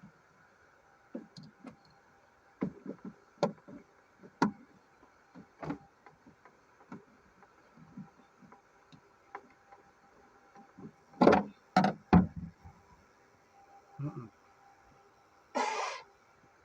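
Scattered clicks, knocks and clanks of hand tools and metal parts being handled. A louder cluster of clanks comes about eleven seconds in, and a short scraping rush comes near the end.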